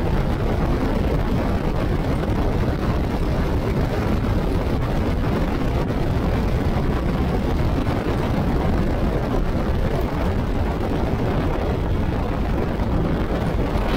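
Steady wind rush on the microphone and road noise from a motorcycle cruising at about 100 km/h on a wet road.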